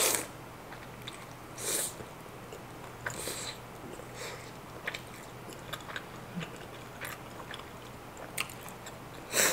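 Close-up eating sounds of a sauce-dipped breaded shrimp cutlet being bitten and chewed. Short bursts come at the start and again a couple of times in the first few seconds, small chewing clicks fall in between, and a louder burst comes near the end.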